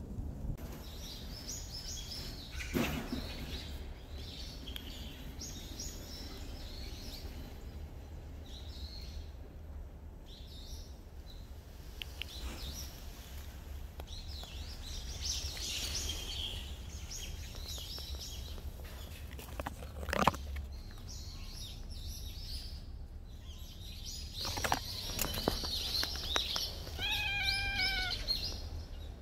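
Small birds chirping on and off over a low rumble that drops away about twenty seconds in, with a sharp knock just before it stops. Near the end comes a quick run of short, slightly falling high calls.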